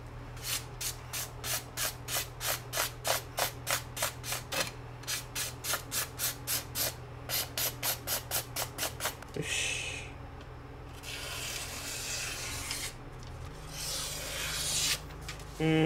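A sashimi knife's edge is drawn again and again across a rolled-up newspaper: short, crisp scraping strokes, about three a second, with a brief pause about halfway. This is followed by a few seconds of newspaper rustling and being cut.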